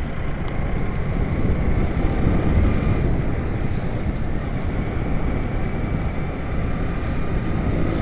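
Steady road traffic noise, a low rumble of passing vehicles, with wind on the microphone.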